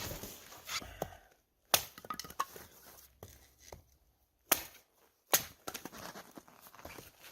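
Frozen firewood knocking and cracking: a few loud, sharp woody knocks spaced a second or more apart, with smaller clicks and rattles between them.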